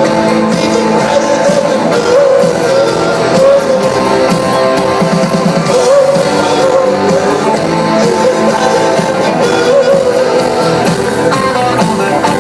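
Live rock band playing a pop song, with a lead voice singing over electric guitars and a steady beat.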